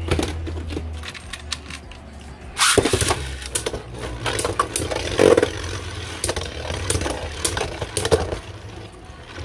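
Two Beyblade Burst spinning tops, King Helios and Super Hyperion, whirring in a plastic stadium with a steady low hum and clacking against each other in sharp clicks, with a flurry of hits about three seconds in and more near five and eight seconds.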